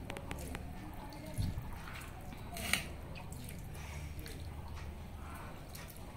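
Hand squeezing and mixing pakhala, cooked rice soaked in water, in a steel bowl: soft wet squelches and drips, with a sharp click about two and a half seconds in.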